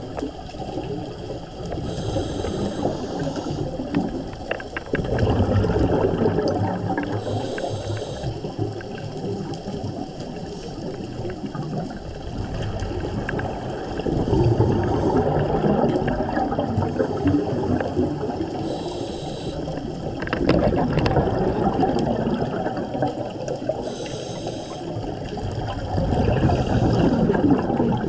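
Underwater ambience from a scuba diver breathing on a regulator: short hissing inhalations every few seconds, each followed by a long, loud rush of exhaled bubbles, as picked up by a camera in a housing.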